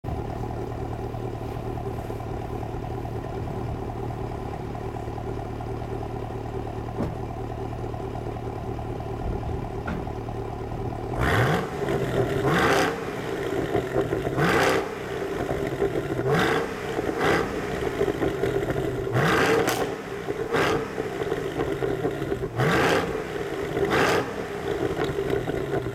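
2014 Chevrolet SS's 6.2-litre V8 idling steadily through its exhaust. About eleven seconds in it is revved with the car standing still: about nine quick throttle blips, each rising sharply in pitch and dropping back to idle.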